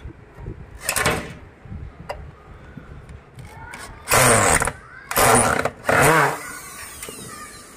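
Handheld electric drill-driver running in short bursts as it drives screws into a speaker cabinet's perforated metal grille: one brief run about a second in, then three quick runs past the middle.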